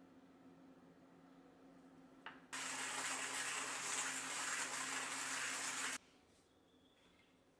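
Water tap turned on and running in a steady rushing stream for about three and a half seconds, then shut off abruptly, with a click just before it starts.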